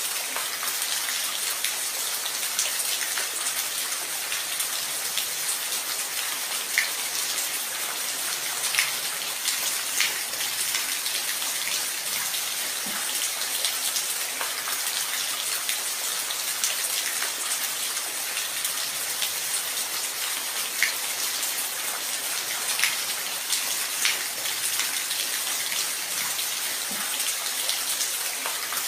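Steady rain falling, a constant hiss with scattered sharper drops ticking through it.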